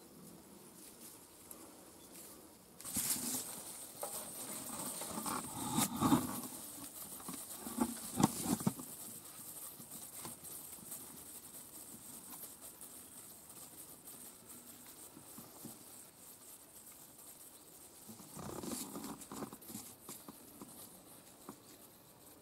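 Rustling and scuffing in dry grass as someone moves and handles things beside the stopped excavator, with a few sharp knocks about six and eight seconds in; the engine is not running.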